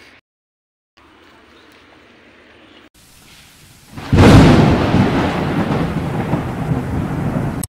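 Thunderstorm sound effect: faint rain hiss, then a sudden loud thunderclap about halfway through that rolls on as a low rumble over steady rain, cutting off at the end.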